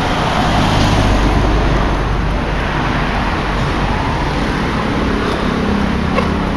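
Road traffic with a bus engine running close by: a steady low drone over tyre and street noise, loudest about a second in.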